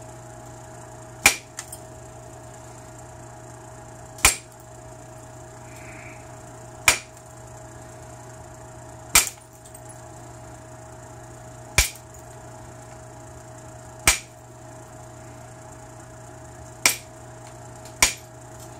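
Antler tool striking the edge of an obsidian preform: eight sharp clicks, one about every two and a half seconds, as flakes are taken off alternately along the square edge at the base. A steady low hum runs underneath.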